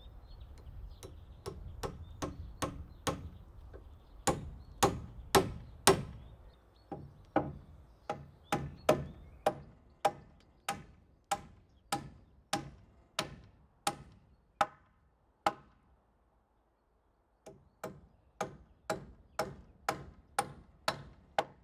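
Hammer striking the timber floor framing in steady blows, about two a second, with a short pause about 16 seconds in.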